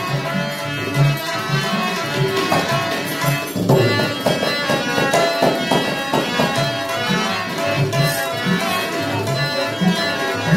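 Rajasthani folk music: tabla keeping a steady rhythm under a held sarangi melody, with a busier run of drum strokes near the middle.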